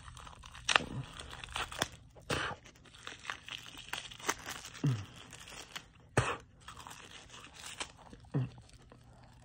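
Packaging of a dog treat being torn open and handled: irregular crinkling and crackling, with a few sharper, louder snaps.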